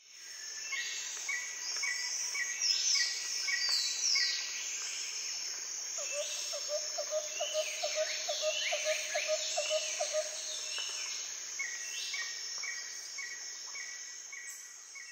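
Forest birdsong over a steady high insect drone: many quick falling whistles, runs of short repeated chirps about three a second, and from about six seconds in a lower, fast-pulsed call lasting some four seconds. It starts suddenly out of silence.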